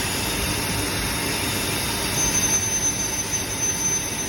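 Ipsen sealed quench furnace unloading machinery running: a steady loud hiss and rumble, with a thin, high metallic squeal setting in about two seconds in.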